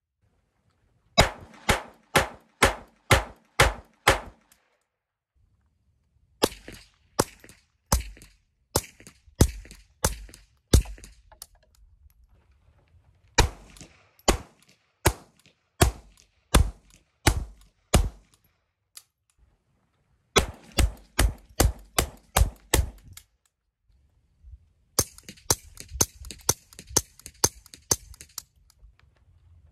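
Beretta 21A .22 LR pistol fired in five quick strings of about ten shots each, roughly three shots a second, with short pauses between strings. Some strings are fired unsuppressed and some through a screw-on titanium suppressor.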